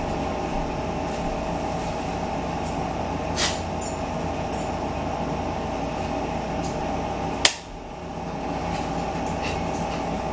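Steady mechanical hum, such as a room air conditioner or fan running, with a light click about three seconds in and a sharper click about seven and a half seconds in.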